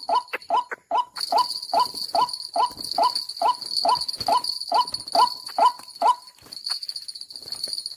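White-breasted waterhen calling: a steady series of short rising notes, about two and a half a second, that stops about six seconds in. A cricket trills steadily behind it.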